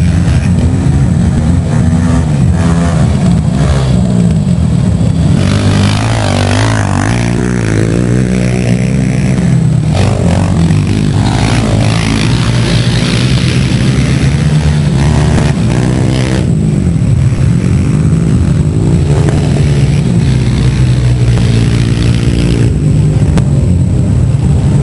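Sport quad (ATV) racing engines revving hard as the quads race past on a dirt track. The pitch rises and falls repeatedly as they accelerate and shift, and it is loudest in the middle as several pass close by.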